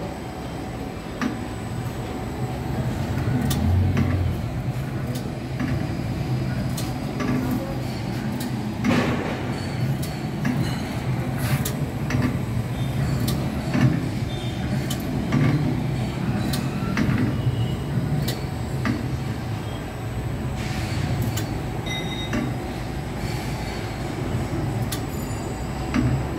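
Semi-automatic ROPP cap sealing machine running: a steady motor-driven rumble with frequent irregular clicks and knocks as its spring-loaded roller capping head works.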